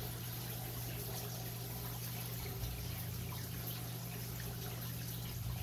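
Aquarium water trickling and splashing steadily, with a low steady hum underneath.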